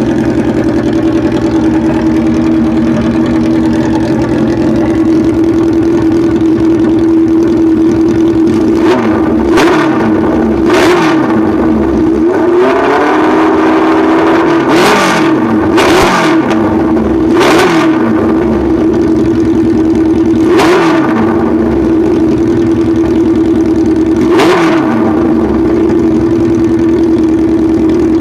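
Classic Japanese motorcycle engine idling steadily, then blipped with about eight short throttle revs from about nine seconds in, each rising sharply and dropping back to idle.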